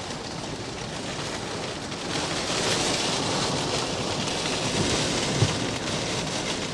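Steady rain falling, an even hiss that grows a little louder about two seconds in.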